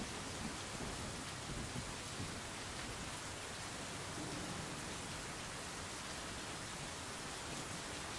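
Steady, even hiss like falling rain, with a few soft low rumbles in the first two seconds.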